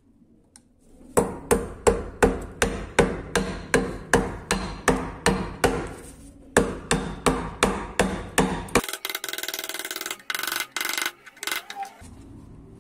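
A small hammer tapping on a metal lamp frame, a steady run of light ringing blows at about three a second with a short pause partway through. Near the end the tapping gives way to about three seconds of a harsher continuous noise.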